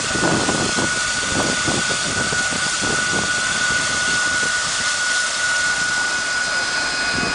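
Southern Pacific 4449, a GS-4 4-8-4 streamlined steam locomotive, standing with steam hissing out, under a steady high whine and uneven low pulsing.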